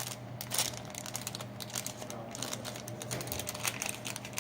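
Irregular light clicks and rustling from handling a wristwatch and its packaging, with a couple of sharper clicks.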